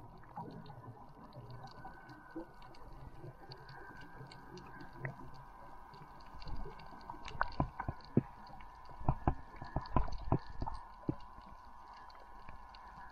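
Underwater reef sound heard through a submerged camera: scattered sharp clicks and crackles, thicker and louder about seven to eleven seconds in, over a faint steady tone.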